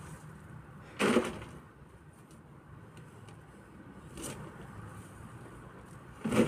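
Shovel working loose earth into a wheelbarrow: two short loud scrape-and-thud strokes, one about a second in and one near the end, with a fainter stroke in between.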